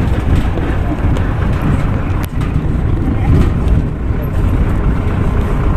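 A vehicle driving along a dirt track, heard from its open back: a loud, steady low rumble of engine and road, with a few sharp knocks and rattles.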